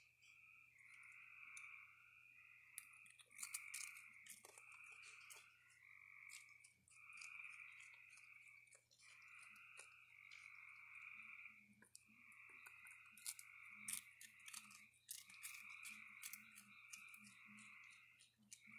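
A faint night chorus of frogs calling in overlapping pulses throughout. Scattered sharp clicks and crunches come from a raccoon eating cereal, cookies and popcorn off a wooden table.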